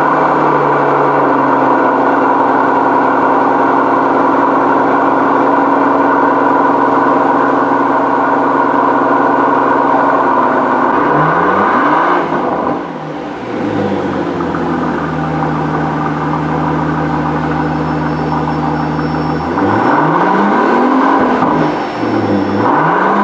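Mercedes-AMG S65's 6-litre twin-turbo V12 running at a steady raised idle just after starting. About eleven seconds in it is revved a few times, then settles to a lower idle. It is revved again around twenty seconds in.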